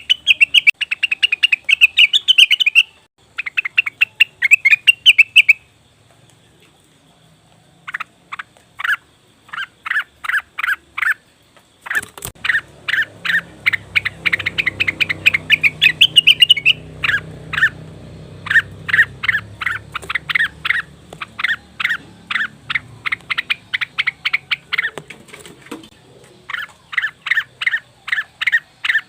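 Cucak wilis (rengganis) bird calling in rapid runs of short, sharp chirping notes, with a brief pause a few seconds in. A faint low hum sits under the calls through the middle.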